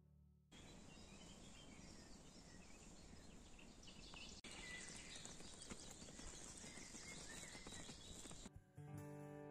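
Quiet woodland ambience: a faint steady hiss with scattered distant bird calls.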